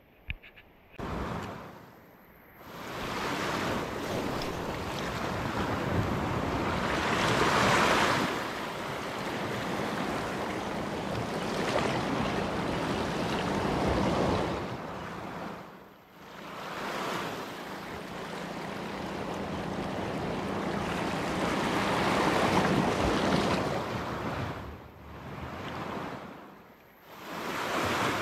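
Sea waves washing and breaking over shoreline rocks, the surf swelling and fading in long surges with a few brief lulls.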